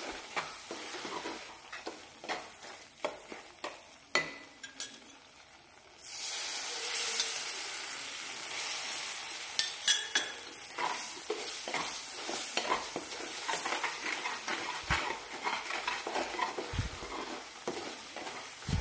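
Wooden spatula stirring and scraping roasted gram flour and ghee in a stainless-steel pan. About six seconds in, a sudden sizzle starts as a splash of milk hits the hot mixture, and the sizzling goes on under the stirring strokes, the stage where milk makes the roasted besan turn grainy.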